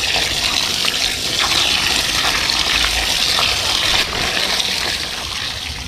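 Running water gushing steadily as a catch of small fish is rinsed, with a few faint knocks; the flow eases slightly near the end.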